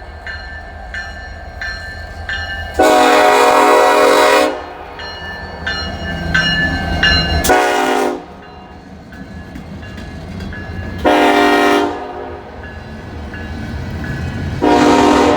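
Norfolk Southern freight locomotive's air horn sounding four blasts for a grade crossing: a long one, a short one, then two more, the last still going at the end. A crossing bell dings steadily under the first half, over the low rumble of the diesel locomotive.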